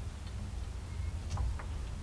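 A few light, sharp clicks, two of them close together near the end, over a low steady hum: small metal hardware and a hand tool being worked while a ground-wire screw is fitted to a steering wheel adapter.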